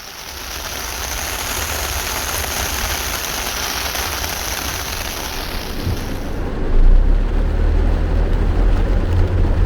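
Heavy rain and road noise heard from inside a Mazda3 driving on an expressway with a window cracked open: a loud, even hiss of rain and spray. About six seconds in, the high hiss falls away and a deep rumble of tyres and wind becomes louder.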